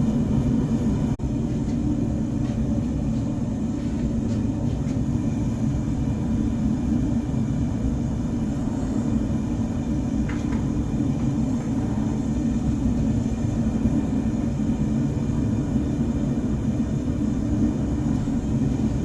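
Forge running steadily with a constant low rushing noise while a knife blade heats in it for normalizing. There is a brief dropout about a second in.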